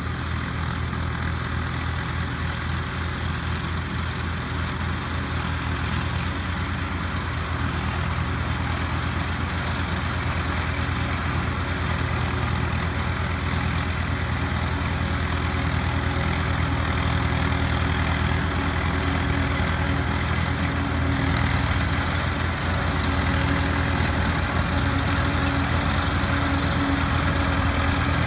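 Diesel tractor engines working steadily under load while a tractor-driven fodder harvester chops standing maize and blows it into a trolley, with a steady mechanical drone that grows gradually louder as the machines draw closer.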